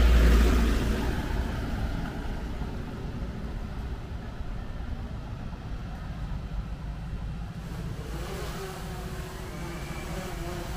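Car on the move: steady road and engine noise. A louder rush at the start fades away over the first couple of seconds.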